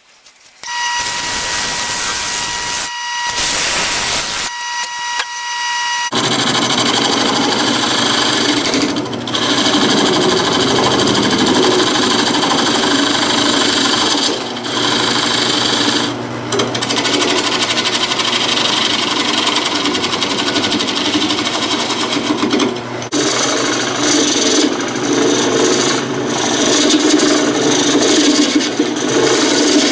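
Power tools working on a wooden bowl: a whining motor for the first few seconds, then a steady rough grinding and rubbing of wood, broken by a few short pauses.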